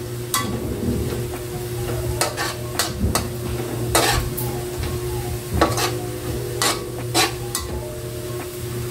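Metal spatula scraping and clinking irregularly against an aluminium wok as minced garlic is stirred in hot oil, with light sizzling underneath. The garlic is being stirred continuously so it browns evenly without burning. A steady low hum runs under it.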